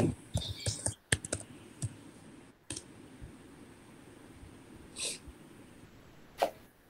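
Typing on a computer keyboard: a quick run of keystrokes in the first two seconds, then a few separate clicks.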